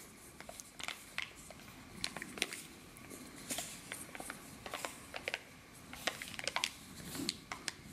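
Faint, irregular small clicks and rustles of fingers handling and turning a cup-shaped cardboard blind-pack container with a foil lid.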